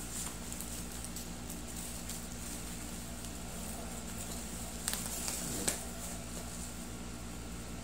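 Faint rustling and crinkling of bubble wrap being handled and cut open with scissors, over a steady low room hum. Two sharp clicks come close together about five seconds in.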